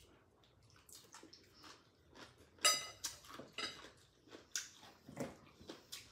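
Eating sounds at a table: noodles being eaten and chewed, with scattered small clicks from chopsticks and dishes. The loudest is a brief high-pitched sound a little under three seconds in.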